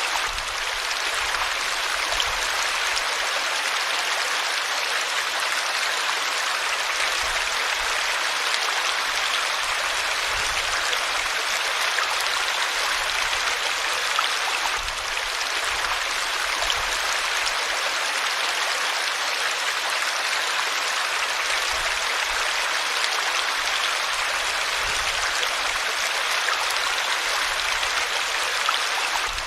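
River water flowing steadily, an even, unbroken rushing.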